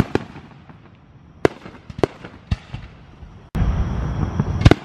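Aerial fireworks shells bursting: a sharp bang at the start, then separate bangs spaced about half a second apart, and another loud bang near the end. A rumbling background cuts in suddenly about three and a half seconds in.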